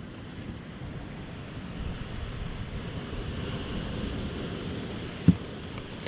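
Wind blowing over the microphone with the wash of surf from the sea, and a single dull thump a little after five seconds in.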